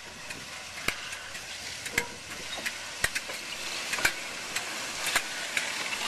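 A diesel-hauled commuter train, DC-class locomotive and carriages, rolling slowly past. The steel wheels give sharp clicks on the rails about once a second over a hiss that slowly grows louder.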